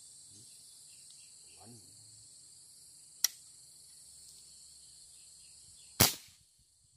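A sharp crack about three seconds in, then a much louder gunshot about six seconds in with a short ringing tail. Both come from a long gun. A steady high-pitched insect chorus runs underneath.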